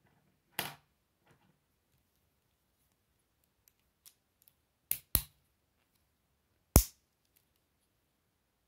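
Plastic K'Nex rods and connectors snapping and clicking together: four sharp clicks, one about half a second in, a quick pair just before five seconds and the loudest near seven seconds, with faint plastic ticks between.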